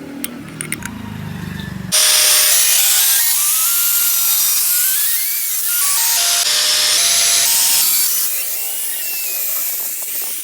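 A power tool starts grinding or cutting with a loud, steady rasp about two seconds in, after a low hum with a few clicks.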